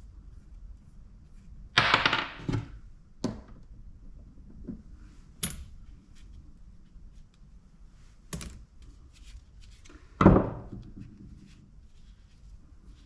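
Irregular knocks and clanks from hand tools working at a scrap electrical part to break loose its copper pieces. About seven separate impacts, two heavy ones about two seconds in and about ten seconds in, each ringing briefly, with smaller taps between.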